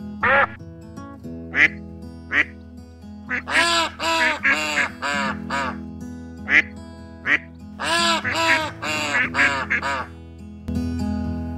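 Ducks quacking, some single quacks and two quick runs of several quacks, over background music.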